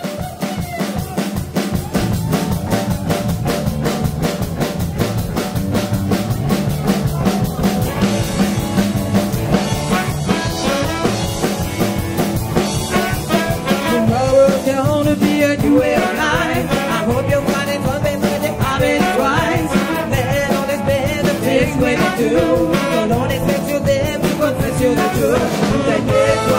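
A live band playing a soul groove on drum kit, bass and electric guitar, with a horn section of saxophones and trombone playing melody lines over it that grow stronger about halfway through.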